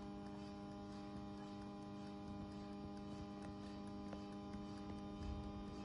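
Small electric kettle humming faintly and steadily on mains power, a steady tone with evenly spaced overtones, the sign that current is reaching its heating element.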